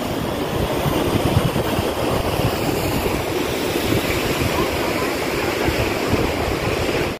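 Steady rushing of the Ganga (Bhagirathi), a fast glacial mountain river pouring over boulders, with wind gusting on the microphone underneath. The sound cuts off suddenly at the end.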